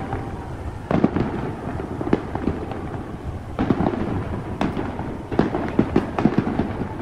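Aerial fireworks bursting overhead: a dense run of sharp bangs at uneven intervals, several close together at times, over a continuous crackle.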